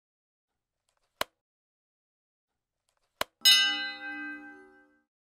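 Two sharp mouse-click sound effects about two seconds apart, then a bell chime that rings out and fades over about a second and a half: the click-and-ding effects of a subscribe-button animation, clicking Subscribe and then the notification bell.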